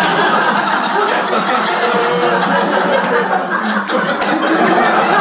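Stand-up comedy audience laughing together, one long even wave of laughter from many people.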